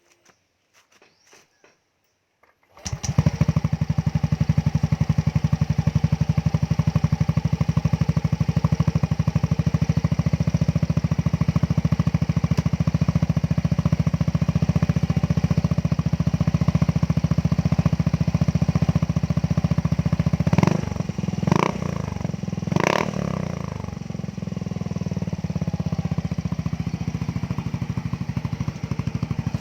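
Yamaha Gravis scooter engine breathing through an Apido V3 aftermarket exhaust pipe, starting up about three seconds in and idling with a steady, even beat. About two-thirds of the way through, the throttle is blipped three times in quick succession, then it settles back to idle.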